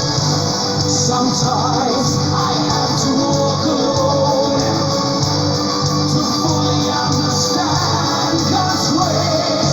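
Neoclassical melodic metal: electric guitars, bass and drums playing together at a steady, driving beat.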